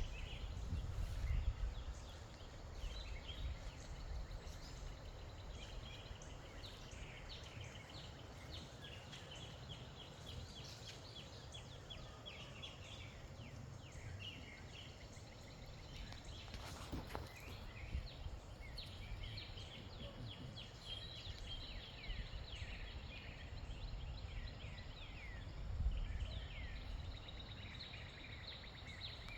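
Birds chirping and calling in a busy chorus of short, high, quick notes, many sweeping downward, with wind rumbling on the microphone, strongest at the start and again briefly near the end.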